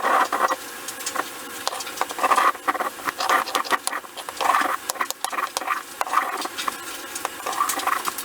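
Rubbing, scratching strokes of hand-shaping wood, about one a second, with light clicks between them, as on a wooden rifle handguard being worked.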